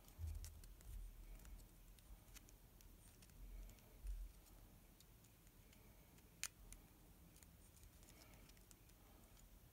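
Near silence with faint handling noise: light clicks and taps of fingers working a lens mount adapter and the chip shelf held against it, with one sharper click about six and a half seconds in.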